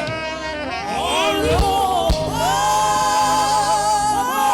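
Worship singing, with sustained notes gliding between pitches over a steady keyboard accompaniment.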